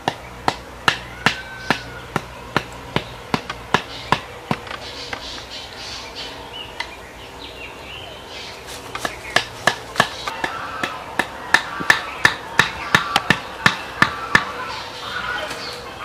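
A wooden club knocking green stakes into the forest floor: a run of sharp strikes about two to three a second, a pause of a few seconds, then a faster run of strikes that stops shortly before the end.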